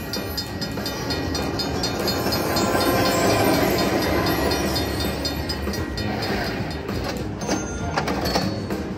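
Cash Express Luxury Line slot machine playing its train sound effect for a gold train symbol: a rumbling train with rapid, even clickety-clack ticks, swelling a few seconds in and easing off near the end.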